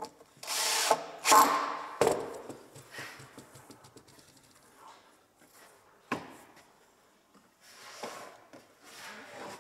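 Plywood panels being shifted and scraped against each other. There are two loud scrapes at the start, then sharp wooden knocks about two seconds in and again about six seconds in.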